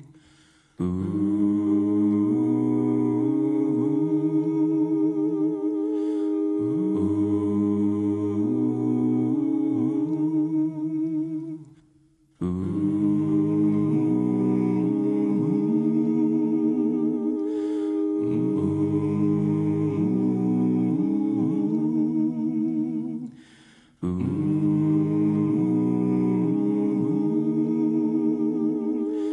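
Wordless a cappella vocal humming in several layers: a held note over a slowly stepping low line. The same phrase repeats about every twelve seconds, with a brief drop to near silence between repeats.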